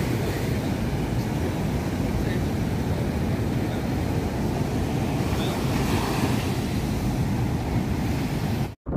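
Rough cyclone surf breaking and rushing in, with wind buffeting the microphone in a steady, heavy rumble. The sound cuts out abruptly for an instant near the end.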